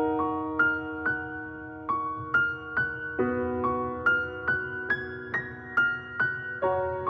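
Background music: a slow piano intro, single notes struck about twice a second over held chords that change twice.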